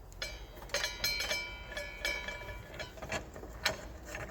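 Metal clicks and clinks with a short metallic ringing: the miter saw's arbor bolt, flange and blade being handled as the blade comes off the arbor.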